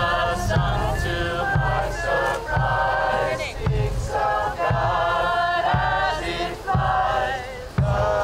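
A group of voices singing a chant-like tune together, with a bass drum beaten about once a second.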